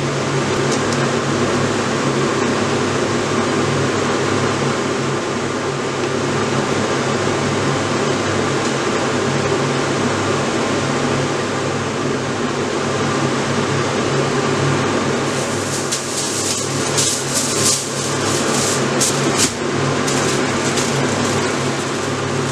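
Steady hum of a fan. About two-thirds of the way through, aluminium foil crinkles in short bursts as it is handled.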